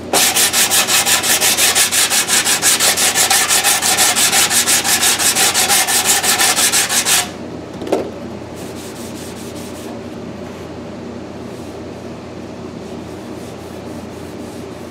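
Hand sanding block scuffed back and forth over the bare steel of a Triumph Spitfire's front valance in quick, even strokes, which stop about seven seconds in. The scuffing shows up the low spots left after heat shrinking. A steady low hum remains after it stops.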